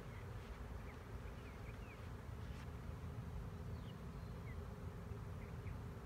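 Honey bees from a swarm buzzing in flight around an open hive box after being stirred into the air: a steady low hum, with a few short high chirps over it.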